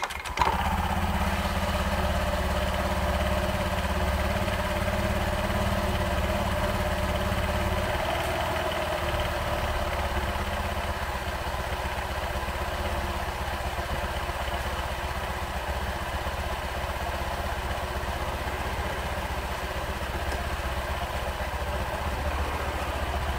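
Honda Vario eSP scooter's single-cylinder engine starting up and idling steadily; the idle settles slightly lower about eight seconds in.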